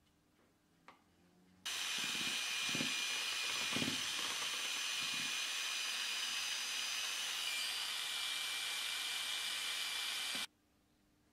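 Power drill with a mixing rod spinning in a pot of linseed oil paint: a steady hissing whine that starts abruptly about two seconds in and stops sharply near the end, with a few low knocks from the pot early on.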